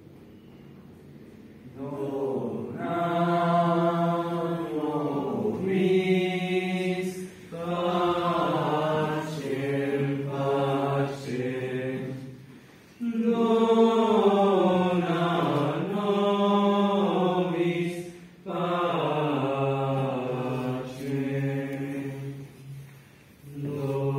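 Choir singing unaccompanied, a slow chant-like melody in long held phrases. It comes in about two seconds in, with short breaks between phrases.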